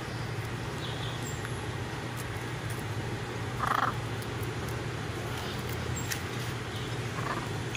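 Blue-and-yellow macaws giving a few short, soft calls over a steady low hum. The loudest call comes about halfway through, and a fainter one comes near the end.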